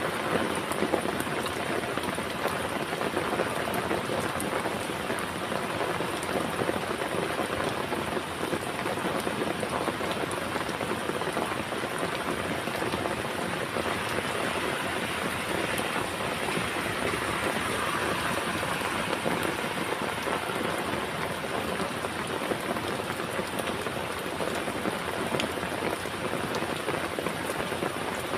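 Heavy rain falling steadily, with a dense patter of raindrops striking a surface.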